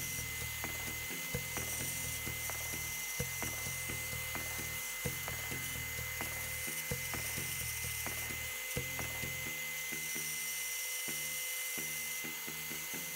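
A woodworking power tool running steadily with a constant high whine, over background music with a regular beat.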